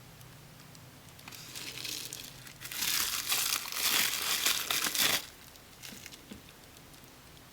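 Packaging being handled and crinkled, a dense rustling that builds up, grows loud for a couple of seconds, then stops abruptly just past the middle.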